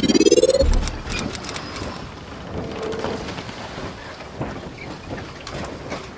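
Channel intro sound effect: a rising whoosh that ends in a low boom about half a second in, then a crackling, hissing rumble with scattered clicks.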